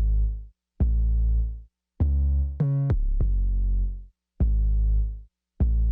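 Electronic outro music: sustained synthesizer chords with deep bass, struck about every 1.2 seconds and each fading out, with a short higher run of notes about two and a half seconds in.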